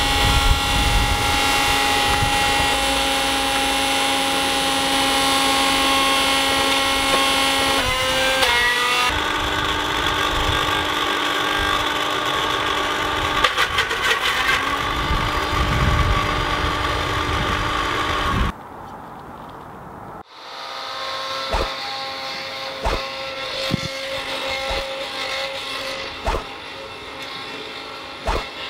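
An electric blender motor running steadily, whining through several pitches and shifting speed about 8 seconds in. It cuts off suddenly a little over halfway through, leaving a quieter stretch with a few sharp knocks.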